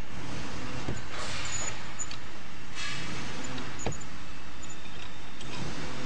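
Hand-cranked aluminium-alloy wire stripper being turned as a thin cable is fed through its rollers: a few light clicks and short hissing swishes over steady background noise.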